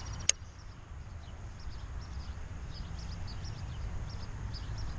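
Small birds chirping off and on, many short high chirps, over a low steady rumble, with one sharp click about a third of a second in.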